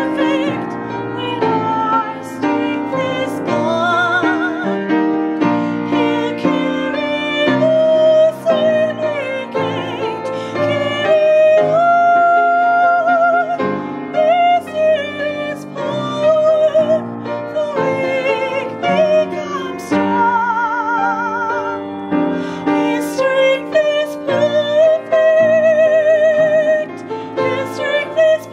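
A woman singing with vibrato on held notes while accompanying herself on an upright piano.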